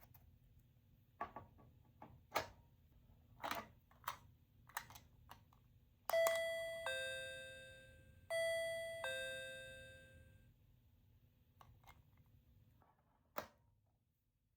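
Small electronic capsule sound toy. Several plastic clicks from handling and pressing come first, then a two-tone ding-dong chime plays twice, each one falling in pitch and dying away. A last sharp click comes near the end.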